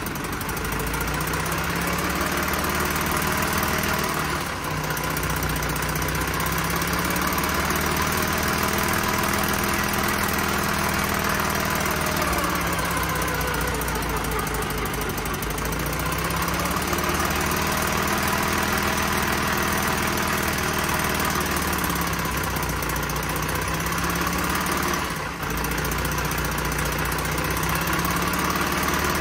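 Lorain cable shovel's engine running, its speed rising and falling slowly again and again as the throttle linkage at the injection pump is worked by hand.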